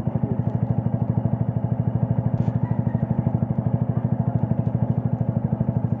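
Keeway Cafe Racer 152's single-cylinder engine idling steadily through an Akrapovic full-system exhaust with the dB killer fitted, a rapid, even beat of exhaust pulses.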